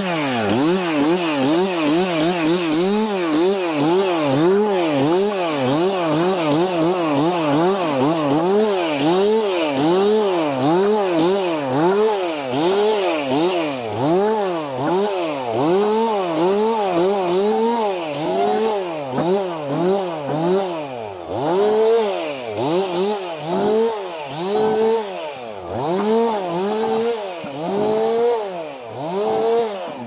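Stihl MS 362 two-stroke chainsaw revving up and dropping back again and again, roughly once a second, as it cuts branches off a fallen tree. Near the end the engine falls back further between cuts.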